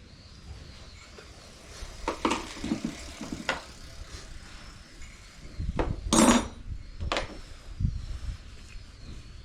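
Irregular metallic clinks and knocks of hand tools and parts being handled while working on a scooter's front brake, with one louder, slightly longer scrape about six seconds in.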